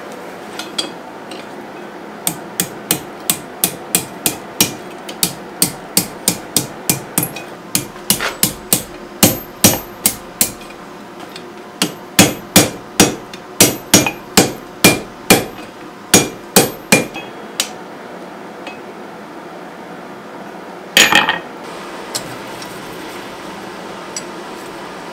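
Blacksmith's hammer striking steel at the anvil in a long run of ringing blows, about three a second, with a short break partway through. A brief clatter comes near the end.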